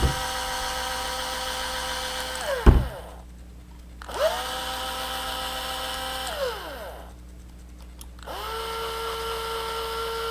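Small cordless power driver spinning screws out of a Traxxas 1/16 differential housing in three runs, each a steady motor whine that slows and drops in pitch as the driver stops. The third run is at a lower pitch.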